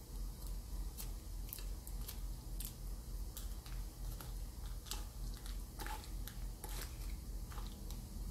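Scattered light clicks and scrapes as a plastic spoon prises steamed tapioca dumplings out of a metal cupcake tin, a little fuller around the middle, over a steady low hum.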